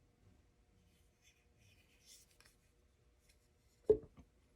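Faint rubbing and handling of a folding knife, then a sharp click near the end with a lighter one just after.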